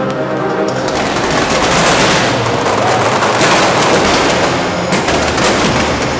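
Fireworks crackling and popping in a fast, dense volley, thickest through the middle, over show music that comes through again near the end.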